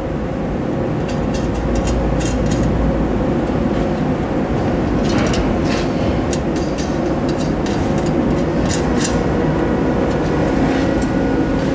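A steady mechanical drone with a constant hum under it. Faint, light metal clicks come now and then as the exhaust's flange and gasket are handled against the header flange.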